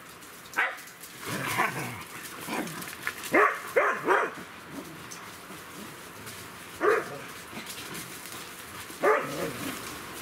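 Dog barking in short single barks, several close together in the first four seconds, then two more a few seconds apart.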